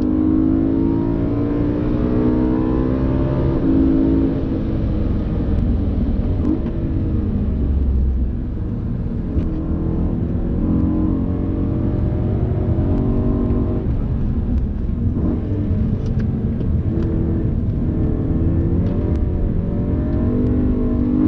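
BMW M3 E92's V8 engine heard from inside the cabin on track, its pitch climbing under hard acceleration and dropping back again and again through gear changes and braking.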